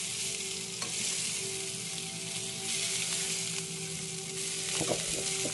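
Yellowfin tuna steaks searing in a hot cast iron pan, a steady high sizzle. This is high-heat blackening, part-way through the cook.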